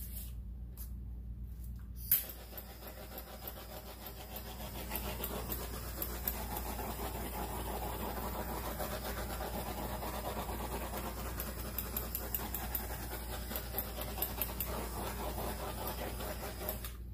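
A click, then a steady rushing noise that runs on without a break.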